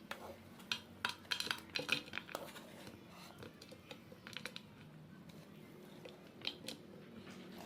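Kitchen utensils and dishes clinking and tapping in short irregular clusters of sharp clicks.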